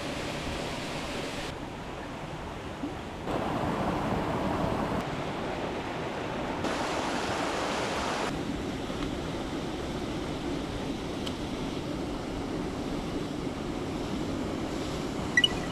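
Steady rush of a mountain stream, its tone and loudness jumping abruptly a few times, with two small sharp clicks near the end.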